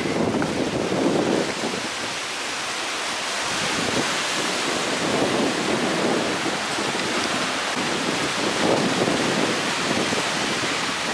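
Ocean surf breaking and washing over sandstone rock shelves, a continuous rush of water with swells every few seconds, with wind buffeting the microphone.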